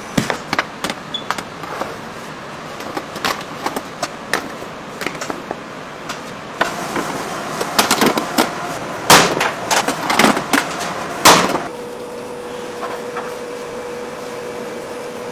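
Bakery work sounds: a metal bench scraper tapping and scraping on a plastic dough board, then several loud metal clanks of bread tins being handled at a deck oven. For the last few seconds a steady hum holds one even pitch.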